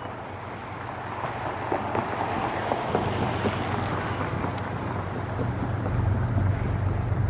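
Approaching freight train led by GE diesel locomotives: a low engine drone that grows louder near the end, over a rushing noise of wind on the microphone.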